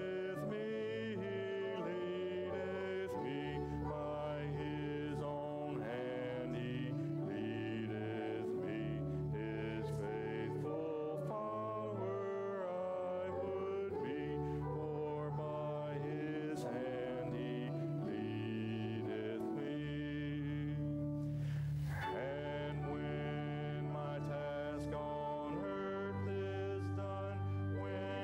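A hymn sung by several voices together, over an accompaniment of long held bass notes that change every second or two.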